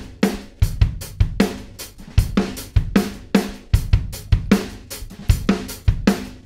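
Drum-kit loop playing back in a steady groove: kick drum and snare with hi-hats and cymbals. It is the original loop, unprocessed, with the multiband plugin bypassed.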